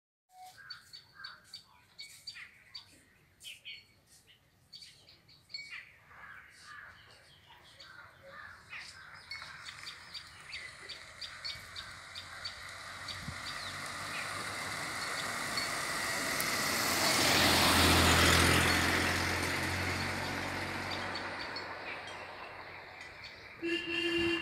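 Small birds chirping in short calls, then a passing vehicle: its noise builds slowly, is loudest about three-quarters of the way through, and fades again. A brief low tone sounds just before the end.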